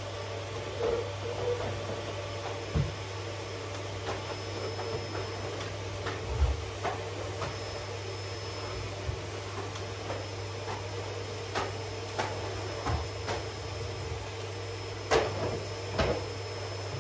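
Canister vacuum cleaner running with a steady hum, with irregular knocks and bumps throughout, the loudest about six seconds in and near the end.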